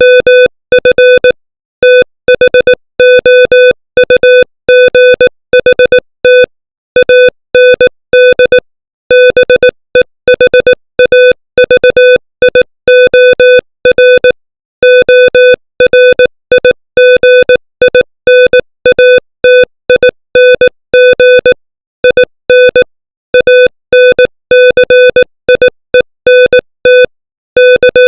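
Morse code sent at 18 words per minute: a single mid-pitched beep keyed on and off in short and long marks (dots and dashes), with longer gaps between letters and words.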